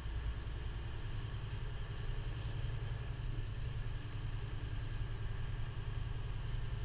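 Freightliner Cascadia semi truck's diesel engine running steadily under way, heard from inside the cab as a low, even drone.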